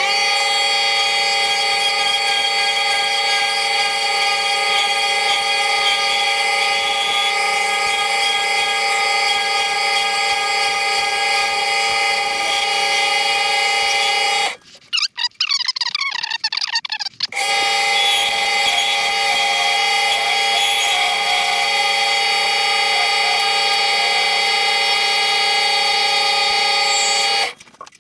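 Lathe running with a steady motor whine while a chisel turns an acrylic pen blank on a mandrel. The sound drops out for a few seconds about halfway through and again briefly near the end.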